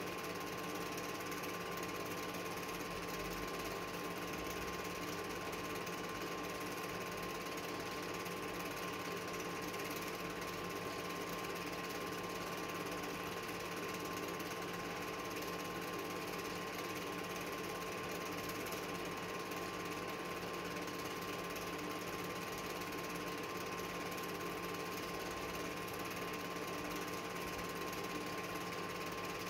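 Film projector running: a steady mechanical whir with constant humming tones, unchanging throughout.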